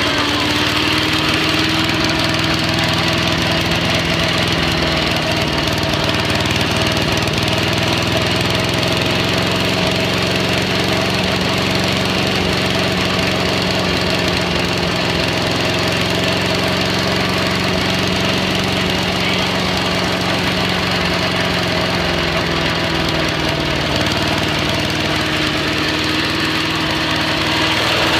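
Small gasoline engine of a wood chipper running steadily on choke, its speed wavering a little. It is running for the first time in a good while and sounds healthy.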